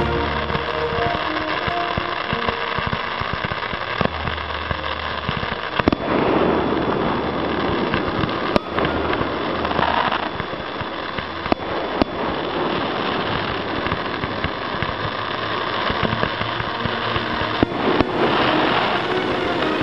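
Fireworks going off: sharp bangs a few seconds apart and swells of crackling, hissing fountains, with accompanying music underneath.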